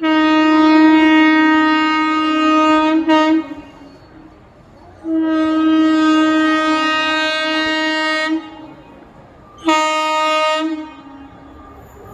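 Indian Railways locomotive horn sounding one steady single-pitched note in three blasts: two long ones and then a short one near the end.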